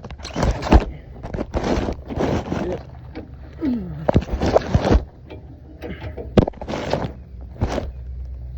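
Irregular metallic scraping and sharp knocks from a screwdriver prying at a pickup truck's stuck spare-tire hanger, in short bursts.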